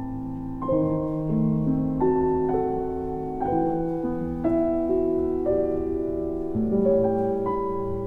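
Solo piano playing a slow Christmas carol arrangement as background music, with held chords and a new note about every half second to a second.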